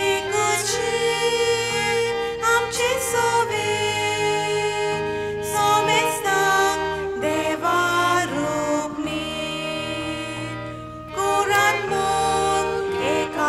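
A Konkani communion hymn sung with instrumental accompaniment, the voices holding long, wavering notes.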